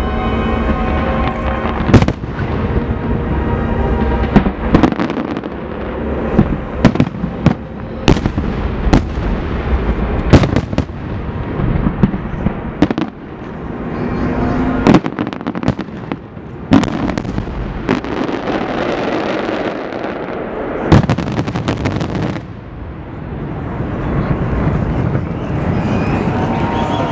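Fireworks display: a rapid, irregular series of sharp bangs from bursting aerial shells over a continuous rumble and crackle, with the loudest bangs about two seconds in and around ten and twenty-one seconds in.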